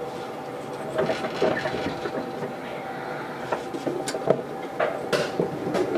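Onboard running sound of a Keisei AE100 series limited-express car on the final approach to its terminus: irregular clicks and knocks from the wheels over rail joints and points, the sharpest about four seconds in. A steady hum from the car's weakly running air-conditioning fan lies underneath.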